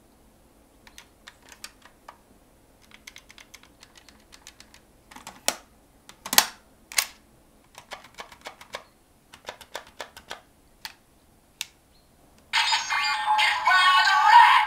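Hard plastic clicks and a few louder snaps as the DX Giffard Rex Vistamp toy and its Magnet Stamp part are handled. About twelve and a half seconds in, the toy starts playing its loud electronic activation announcement.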